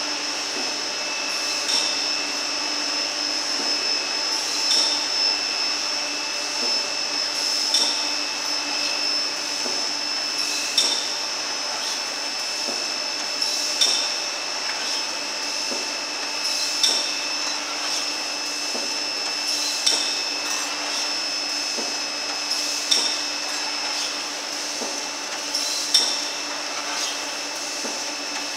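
Marchesini MA 50 automatic continuous-motion horizontal cartoner running, with a steady high whine and a sharp clack about every three seconds.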